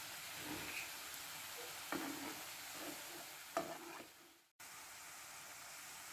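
Unnakkaya, plantain fritters fried golden brown, sizzling steadily in hot oil in a frying pan, with two light taps of a metal slotted spoon against the pan as they are lifted out. The sizzle drops out for a moment about four seconds in.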